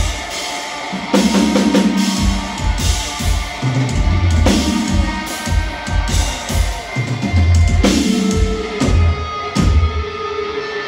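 Metalcore band playing live in a club: pounding drum kit and heavy distorted guitars in stop-start low chugs, with cymbals crashing over the top.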